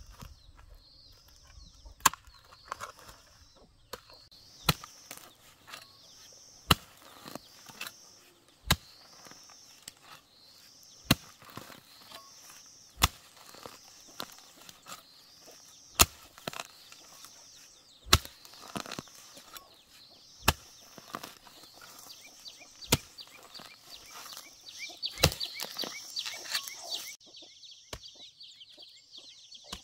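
Hand hoe striking into dry soil, a sharp chop about every two seconds. Behind it a high chirping call repeats about once a second, and a denser high chirring comes in near the end.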